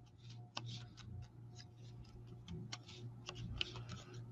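Faint, irregular small clicks, taps and light scratching of paper and cardstock pieces being handled at a craft table, with a low steady electrical hum beneath.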